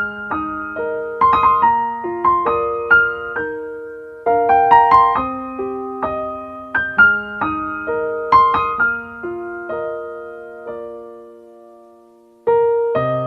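Calm ambient music on a piano-like keyboard: tinkling notes and small chords in loose phrases, each left to ring and fade. Near the end the sound dies almost away before a new phrase starts.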